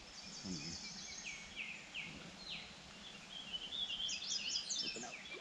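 Several birds singing and calling: a repeated down-slurred whistle about twice a second, and higher chirps that crowd together about four seconds in, over a steady background hiss.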